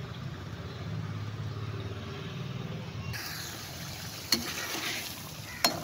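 A low steady rumble, then from about three seconds in the hiss of chicken karahi sizzling in a metal pot, with a slotted metal spoon clanking against the pot twice.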